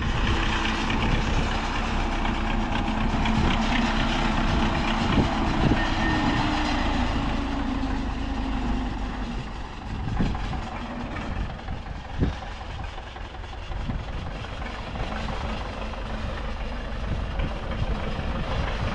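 A car on the move, heard from inside the cabin: steady road and engine noise, with a couple of light knocks.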